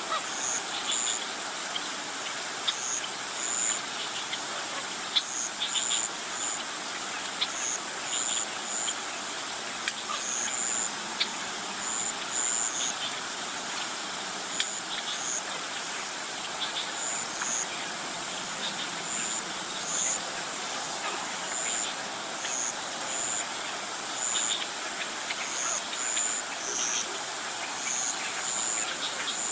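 Outdoor insect and bird chorus: a steady high insect hiss with short, high chirps repeated irregularly, about once or twice a second.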